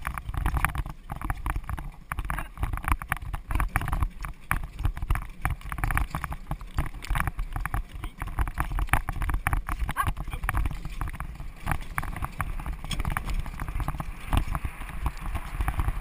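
Hooves of a harness horse on dirt and grass and the rattle of the carriage it pulls, a dense run of knocks and clatter with a steady low rumble of wheels and wind.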